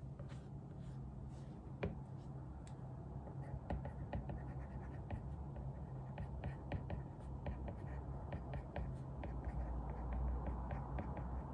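Writing by hand on paper: a rapid, irregular run of short scratches and ticks of the pen tip, busier from a few seconds in, over a steady low hum.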